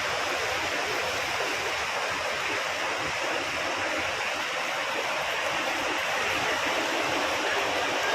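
Floodwater rushing, a steady even roar of fast-flowing water.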